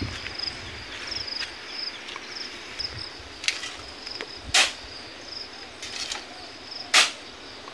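Shovel scooping sand and tossing it into a dump truck bed: several sharp swishes and scrapes in the second half, the loudest about halfway through and near the end. Behind them, insects chirping in a steady pulsing trill.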